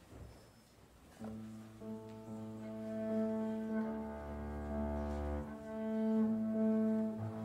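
Bowed double bass with piano accompaniment starting to play about a second in, holding long sustained notes in a slow classical piece.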